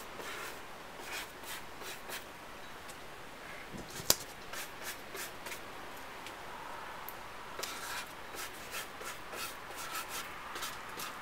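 Small paintbrush stroking paint onto a cardboard box: a run of short, scratchy brushing strokes, with one sharp click about four seconds in.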